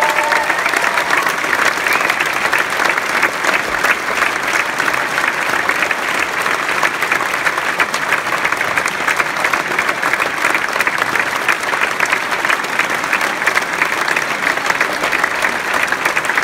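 Large concert-hall audience applauding steadily, many hands clapping at once with no music playing.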